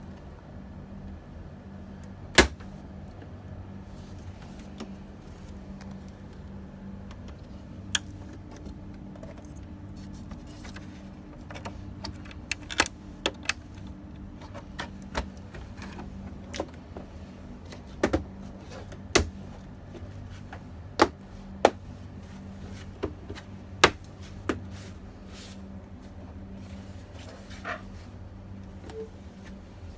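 Irregular sharp clicks and taps of plastic and metal computer parts being handled while working inside a Lenovo V530 desktop PC for a RAM upgrade, the loudest about two seconds in and more frequent in the second half, over a steady low hum.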